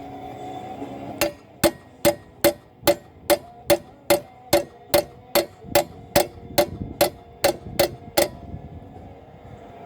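A hammer striking the stuck engine case cover of a 12 hp flathead Briggs & Stratton engine to free it from its studs: about eighteen steady, evenly paced blows, roughly two and a half a second, each with a short metallic ring.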